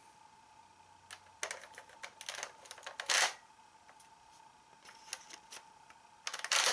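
Plastic clicks and short scrapes as a card is handled and slid into the Dragvisor Zwei toy gun: scattered clicks, a longer scrape about three seconds in, and a quick run of clicks near the end as the card goes in.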